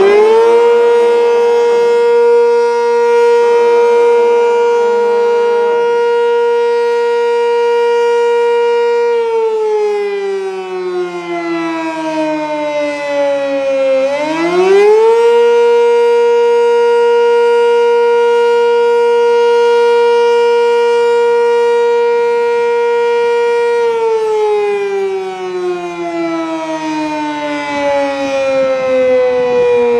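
Fire station siren wailing in two long cycles. It winds up to a steady pitch at the start and holds it for about nine seconds before winding down. It winds up again about fourteen seconds in, holds for about ten seconds, and falls slowly in pitch near the end.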